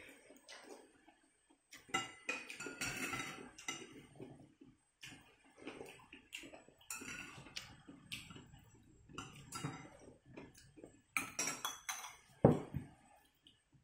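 A spoon and chopsticks clinking and scraping against a ceramic soup bowl while eating, with a sharp knock near the end as the bowl is tipped and set back down on the table.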